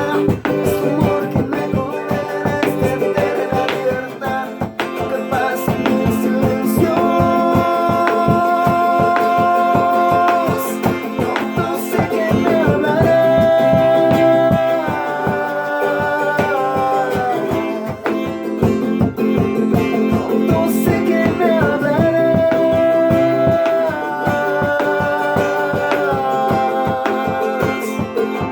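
Acoustic guitar strummed in a Bolivian folk rhythm, with a melody carried in long held notes over it.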